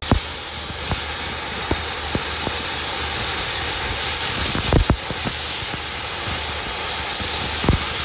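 Oxy-fuel cutting torch hissing steadily as its oxygen jet cuts through thick steel plate, with a few short, sharp pops along the way.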